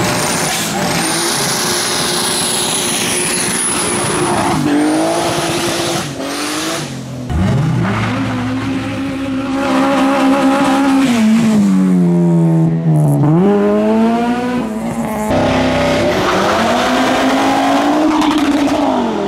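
Modified cars driving off under hard acceleration, one after another. Engines rev up and fall back several times with gear changes, and a thin high whistle runs for the first few seconds.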